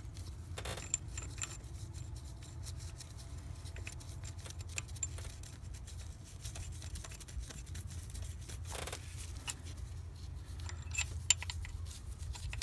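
Scattered small clicks and light metallic clinks of gloved hands working a high-pressure fuel pump and its electrical connector into place, over a steady low hum.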